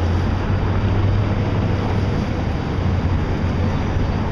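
Steady low engine hum under a continuous rushing, wind-like noise, with no distinct events.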